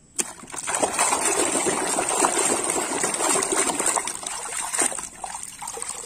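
Water sloshing and splashing in a small tub as a plastic toy elephant is scrubbed and rinsed in it, starting suddenly and getting quieter near the end as water drips off the toy.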